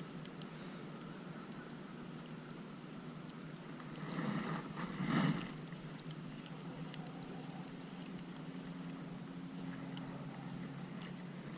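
Water around a kayak: a steady low wash, with two short splashing surges about four and five seconds in.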